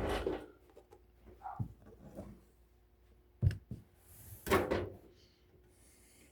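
Parts of an electric stove heater being handled and fitted together during reassembly: a few scattered knocks, a sharp one about three and a half seconds in, and a brief scrape a second later.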